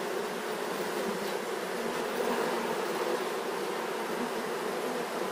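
Honeybees buzzing around their hives: a steady hum of many bees.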